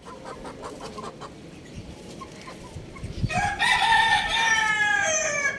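A rooster crows once: a single loud call of about two seconds that starts a little past three seconds in and drops in pitch at the end.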